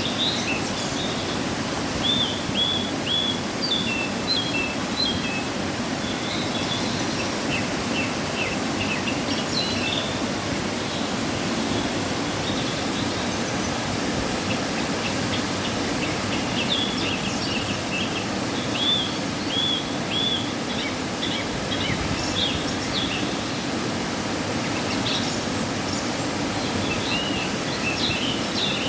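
A waterfall running after rain, a steady rushing of falling water. Over it, small birds chirp in short scattered bursts of high notes.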